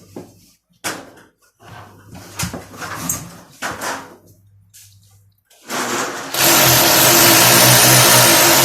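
Scattered handling knocks and scrapes, then a power tool starts about five and a half seconds in and runs loudly and steadily.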